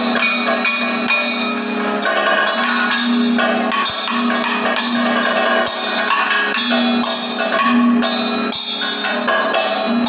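Kathakali percussion accompaniment: chenda and maddalam drums struck in a steady beat of about two strokes a second, with bell-metal cymbals and gong ringing on the strokes.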